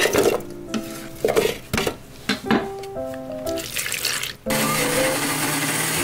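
A few knocks as chunks of pear and onion go into a blender's stainless steel jar, over background music; about four and a half seconds in, the blender starts and runs steadily, grinding the pear, onion and water into a purée.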